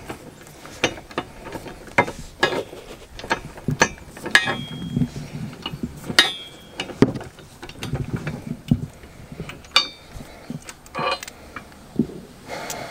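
Socket ratchet clicking in short, uneven strokes while a hitch bolt is driven into a minivan's frame, with sharp metal clinks; two clinks ring briefly, about four and six seconds in.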